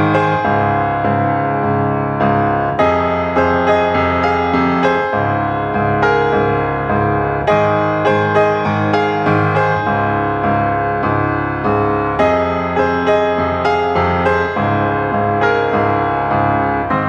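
Background piano music: a steady run of notes and held chords with an even pulse.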